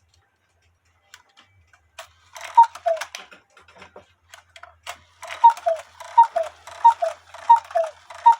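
Cuckoo clock striking the hour: two-note cuckoo calls from its bellows, a higher note falling to a lower one, once about two and a half seconds in and then five more in a steady run about every 0.7 s, with clicks and clunks of the strike mechanism. The bent tab on the 8-point star wheel has been set right, and the cuckoo runs through without sticking.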